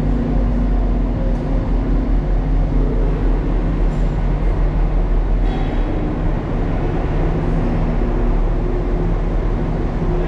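Open-top Mazda MX-5 (ND Roadster) creeping through a ferry's enclosed vehicle deck: a steady low rumble of engine and deck noise.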